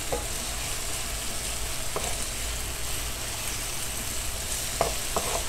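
Sliced onion, sweet peppers and tomato sizzling steadily in hot oil in a non-stick frying pan, with a few light taps of a wooden spoon stirring them, about two seconds in and again near the end.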